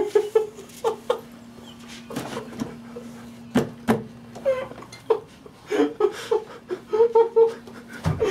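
Short bursts of stifled giggling and laughter, with a faint steady hum underneath for the first half.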